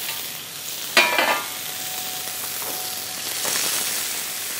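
Rabbit loin searing in hot sunflower oil in a frying pan, a steady sizzle that swells about three and a half seconds in. A sharp clink sounds about a second in.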